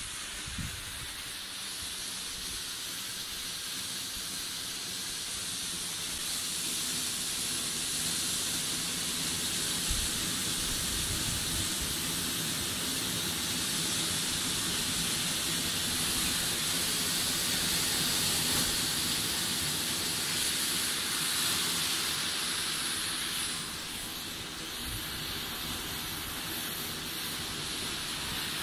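Homemade charcoal-spark gerb (fountain firework) burning with a steady hiss, growing louder toward the middle and easing off a little about 23 seconds in.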